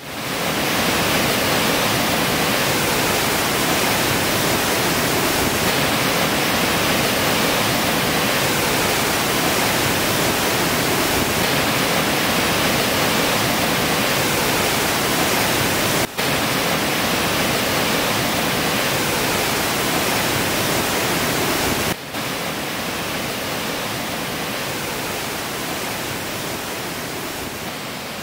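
Floodwater pouring down a stone stepped reservoir overflow in spate, a loud steady rush of white water. The sound drops out very briefly twice and fades near the end.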